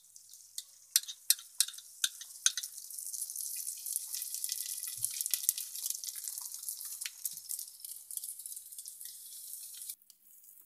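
Beaten egg sizzling in hot oil on a tawa griddle, with sharp crackling pops in the first few seconds settling into a steady sizzle that cuts off abruptly near the end.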